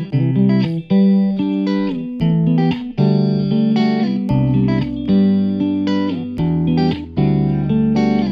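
Background music: a guitar-led instrumental track playing plucked notes in a regular rhythm.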